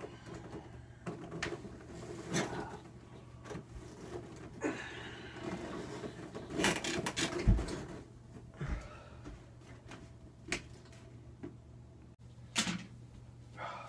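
Bedding rustling with scattered knocks and thumps as a person throws off a comforter and gets out of bed, the loudest rustling and a low thud about seven seconds in. A low steady hum runs underneath.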